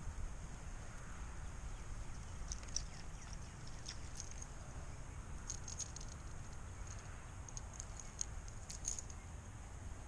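Wind rumbling on the microphone, with scattered faint, high-pitched ticks from about two and a half seconds in.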